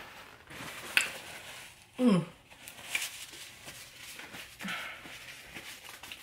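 Close-miked eating sounds: mouth clicks, lip smacks and chewing of seafood, with one short falling 'mm' from the eater about two seconds in.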